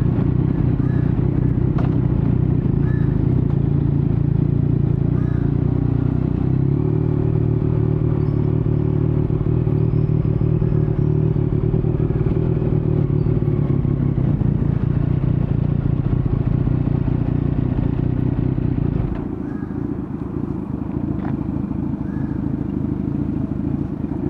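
2019 Yamaha MT-09's three-cylinder engine running through an Akrapovic carbon full-system exhaust with no dB killer, at low, steady revs as the bike rolls slowly. About three quarters of the way through, the exhaust note drops and goes quieter.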